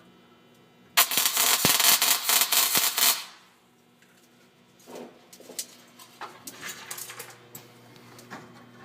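Welding arc crackling loudly for about two seconds, then scattered lighter clicks and taps.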